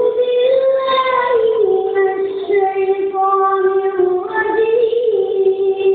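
A child's high voice singing or chanting in long, drawn-out notes with hardly a pause, the pitch stepping down after about a second and a half and wavering back up for a moment near five seconds.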